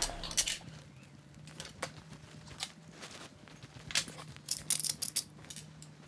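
Scattered light clicks and taps of aluminium frame plates and small screws being set down on a wooden workbench, with a quick cluster of taps about four to five seconds in. A faint steady hum runs underneath.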